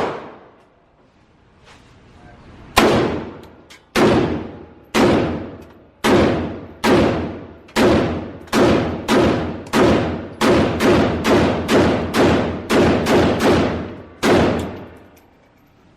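A firearm fired about twenty times, each shot followed by a long echo: slow single shots at first, speeding up to about two a second, emptying the rest of the magazine.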